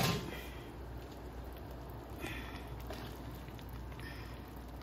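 Spaghetti being stirred in a pot of boiling water: a knock from the utensil against the pot at the start, then soft wet stirring and bubbling over a steady low hum.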